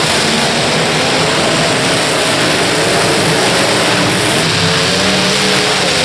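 Several demolition derby car engines running loud and revving over a continuous din, their pitch wavering up and down.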